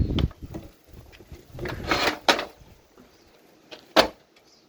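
Knocks and scraping from the burnt space heater's metal casing being handled: a low thump at the start, a scrape with a click about two seconds in, and a sharp knock near the end.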